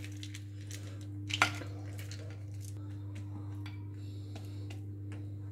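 Roasted peanuts poured from a plastic measuring cup and spread with a silicone spatula over a bowl of dabeli filling: faint scattered light clicks, with one sharper click about a second and a half in, over a steady low hum.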